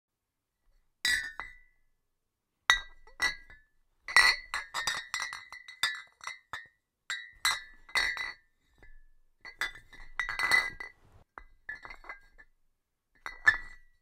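Glass beer bottle struck gently again and again, each knock a bright clink that rings briefly at the same clear pitch. The clinks come singly at first, then in quick clusters, with a last one near the end.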